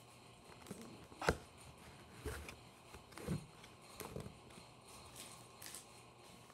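Handling sounds while sorting trading cards: a sharp knock about a second in, then several softer knocks and rustles.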